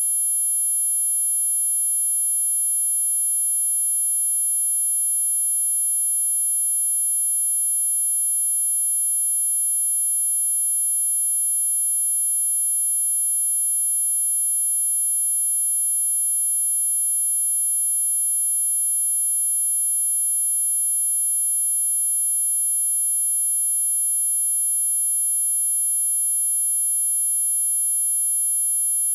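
Very high-pitched electronic tone held steady without any change, in the manner of a mosquito ringtone, with fainter steady tones above and below it.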